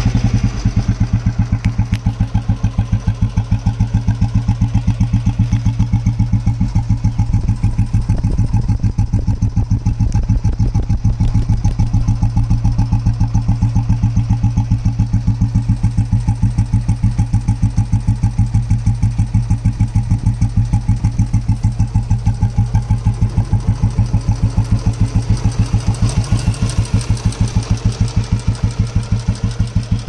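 A 1978 Royal Enfield Bullet 350's single-cylinder four-stroke engine idling, with an even, steady beat from the exhaust.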